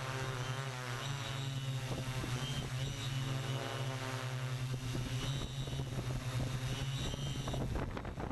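DJI quadcopter's electric motors and propellers humming steadily while hovering, several pitches wavering slightly as the motor speeds adjust, with rougher, gustier noise near the end.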